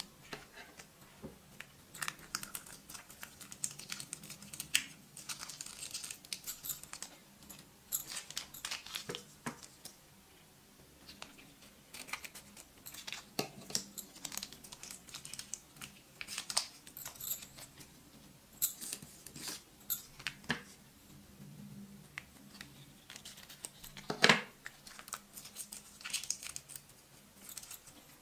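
Plastic shampoo sachets crinkling and tearing as they are handled, torn open and squeezed by hand: scattered sharp crackles and ticks, with one louder crack near the end.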